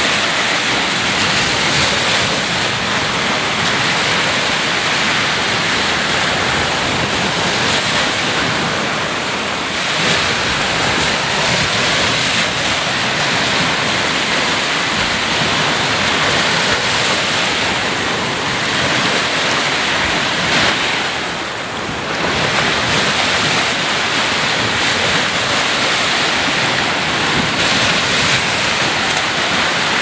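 Ocean surf: waves breaking and washing in as a steady rush of noise, easing off briefly about two-thirds of the way through.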